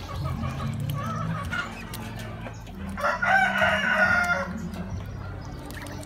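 A rooster crowing once, about three seconds in, lasting over a second, with softer short bird calls before it and a steady low hum underneath.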